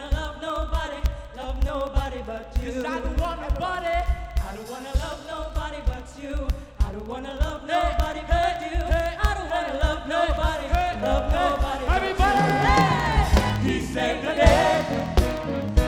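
Live gospel band playing, with group singing over a steady drum beat.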